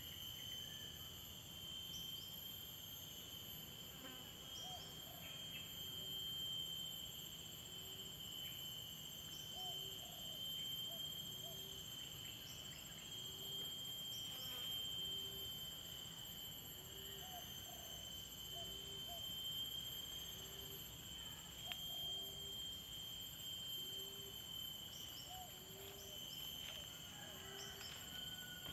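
Insects droning steadily in several high-pitched tones, with a soft low note repeating about once a second.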